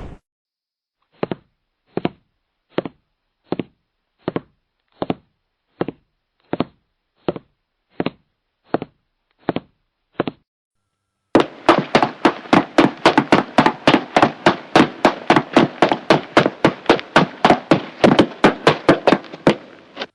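Footsteps: about thirteen slow, even steps, then after a short pause a quicker series of steps, about four a second, with a hiss between them.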